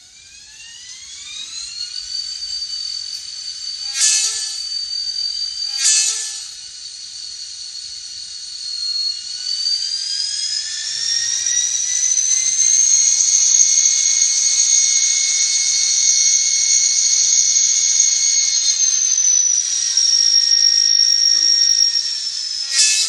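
Sound decoder in an N scale EMD GP30 model locomotive playing a diesel prime mover and turbocharger sound through its tiny speaker. A whine rises as the engine spools up, with two short bursts about 4 and 6 seconds in. It then climbs higher around 10 seconds, holds, and drops back near 19 seconds, with another short burst at the very end.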